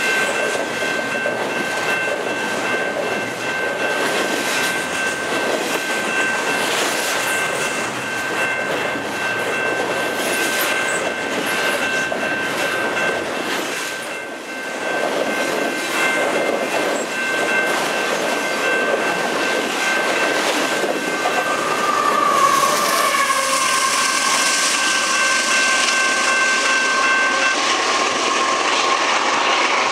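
Long freight train of double-stack container cars and autoracks rolling past, with steady wheel-on-rail noise, rapid clicking over the rail joints and a steady high-pitched squeal that stops near the end. The sound grows louder in the last third as the train's rear-end remote locomotive, a CP AC4400CW, draws near, with a lower steady tone added.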